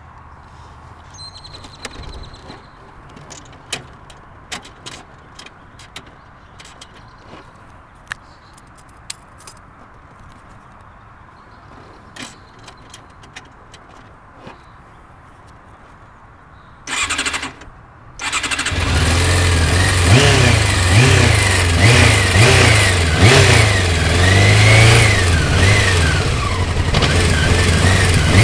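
Scattered clicks over quiet, then about two-thirds through the starter cranks briefly. A second later the 1987 Honda CBR600F Hurricane's inline-four catches and runs, its revs rising and falling.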